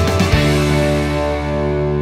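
Background music: the beat stops about half a second in and a final guitar chord is held, slowly fading.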